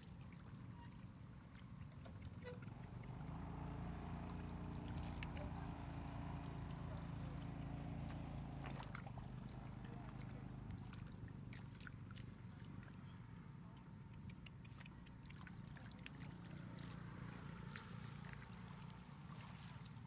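A low motor drone, like a small engine running in the distance, louder from about three to nine seconds in and then fading, with scattered small wet clicks and splats from hands and fish in shallow mud.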